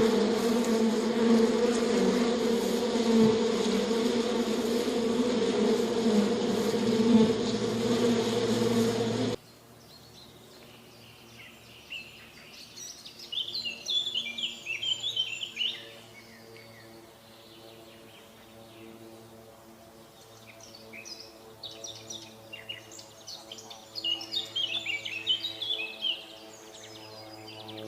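An insect buzzing loudly and steadily for about nine seconds, then cutting off suddenly. After that, quieter bird chirps come in two quick trilling runs over faint steady background tones.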